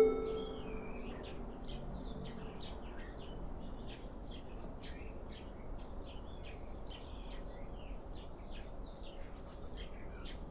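Small birds chirping, many short high calls one after another, over faint steady outdoor background noise. At the very start the last note of the loudspeaker chime fades out.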